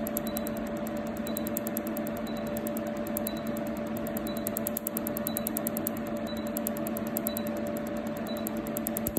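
Medical laser machine running during a toenail treatment: a steady hum with a short high beep about once a second and a fast, even pulsing high above it, as the laser fires on the nail.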